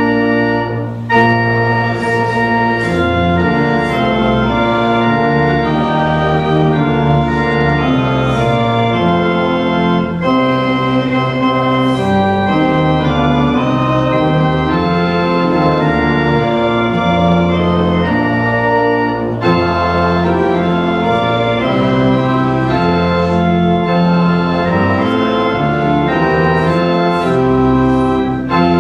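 Church pipe organ playing slow held chords that change every second or two. The sound breaks off briefly about a second in, again about two-thirds of the way through, and just before the end.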